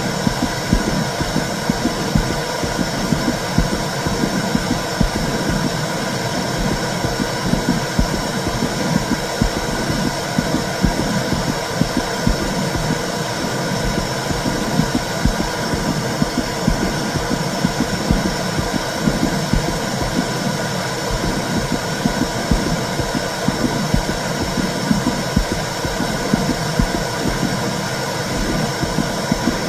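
Womb sound for soothing a baby: a steady low rumbling whoosh with a fine flutter in it and no break or change.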